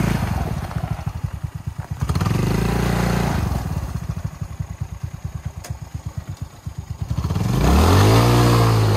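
Small engine of an off-road buggy revving in surges, dropping to a slow chugging idle in between, with a sharp rev climbing and easing off near the end: the driver is trying to power the stuck buggy free.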